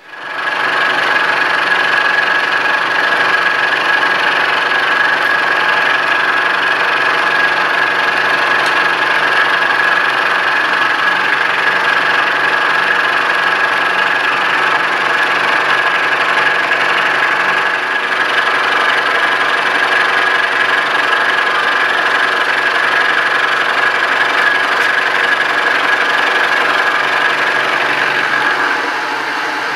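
Vertical milling machine cutting along the edge of a metal bar with a 3/4-inch end mill: a steady machining sound with a constant high tone through it. Near the end the cut finishes and the sound drops to the quieter running of the spindle.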